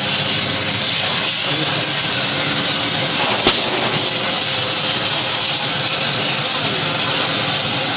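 Machine cutting sheet metal for HVAC duct, giving a steady hiss, with one sharp click about three and a half seconds in.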